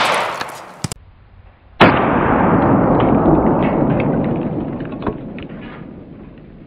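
A 9mm pistol shot into a cow leg bone, its report dying away within the first second, with a couple of sharp clicks just before a second. About two seconds in, the same shot plays back in slow motion: a drawn-out, dull gunshot that fades slowly over about four seconds.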